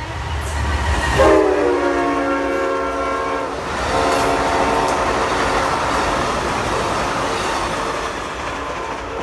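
Amtrak passenger train passing close at speed: the diesel locomotive's air horn sounds a chord about a second in, held for about two seconds, with a short second note just after. Then the steady rush and clatter of the double-deck passenger cars' wheels on the rails.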